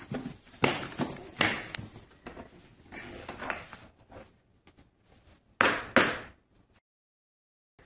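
Scattered knocks and slaps on a hardwood floor from a baby army-crawling with a small toy in hand. The loudest pair comes about six seconds in, and the sound then cuts out completely near the end.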